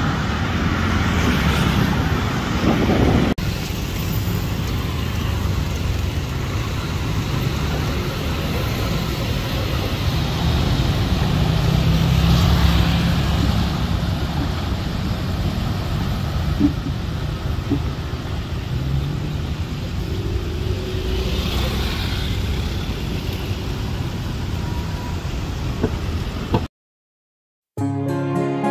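Steady road traffic noise: cars passing and engines running on a busy multi-lane road. Near the end the sound cuts to a moment of silence, then soft music begins.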